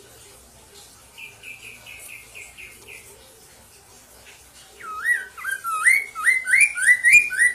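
Poksay mandarin (chestnut-capped laughingthrush) singing: first a soft run of short, evenly repeated notes, then, about five seconds in, a loud series of rising whistles, about three a second, with high chirps over them.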